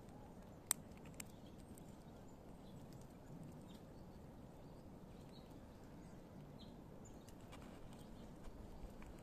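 Squirrel gnawing nuts in a feeder: faint scattered ticks and clicks over a low background hum, with one sharp click just under a second in.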